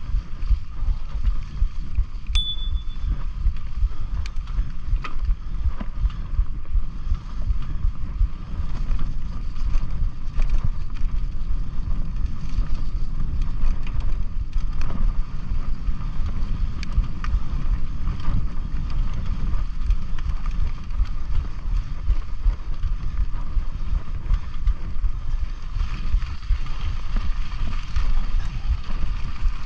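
Mountain bike riding a dirt singletrack, with heavy wind buffeting on the microphone and tyre rumble, plus occasional light clicks and rattles from the bike. A brief high chirp sounds about two seconds in.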